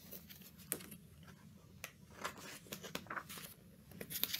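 Faint rustling and soft clicks of a picture book being handled as its page is turned, busier toward the end.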